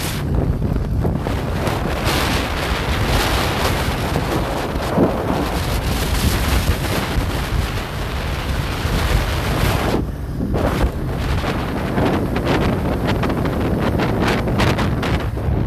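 Wind buffeting the microphone of a moving motorcycle, with a steady low engine and road rumble underneath. The wind noise eases briefly twice, about a second in and about ten seconds in.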